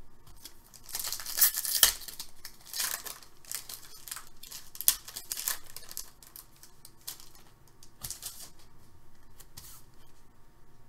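A foil pack of Upper Deck Synergy hockey cards being torn open and crinkled by hand, in several rough bursts of tearing and rustling, the loudest about one to two seconds in.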